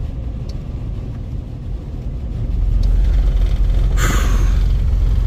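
Low, steady rumble inside a 1999 Isuzu Trooper's cabin as it drives on a snowy road. The rumble grows louder a little under three seconds in, and a short burst of hiss comes about four seconds in.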